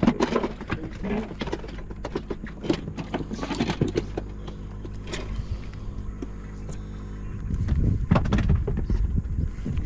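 Steady low hum of a boat motor, with clicks and rattles of a baitcasting reel being handled and cast. A louder rush of low noise comes in near the end.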